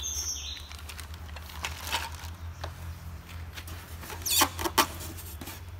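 Knife blade scraping and prying at a polystyrene foam packing insert: a run of scratchy squeaks and rustles, with two sharper, louder creaks about four and a half seconds in. A steady low hum runs underneath.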